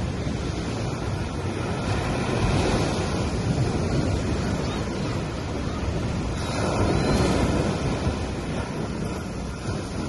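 Sea waves washing onto a beach: a steady surf rush that swells twice as waves break and run up the shore.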